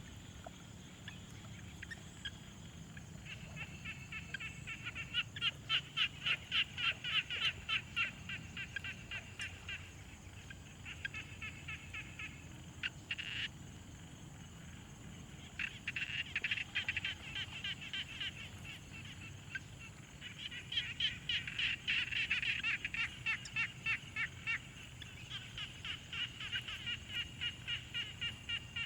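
Pond frog chorus: frogs croaking in long rhythmic trains of pulsed calls, about three a second, coming in bouts with short pauses between them. A thin steady high tone runs underneath.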